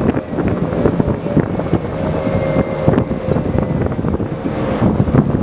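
Type 96 Wheeled Armoured Personnel Carrier's diesel engine running as the eight-wheeled vehicle drives along, heard from the open roof hatch with wind buffeting the microphone. Metal fittings rattle and clank throughout, and a steady whine comes in about two seconds in and lasts a few seconds.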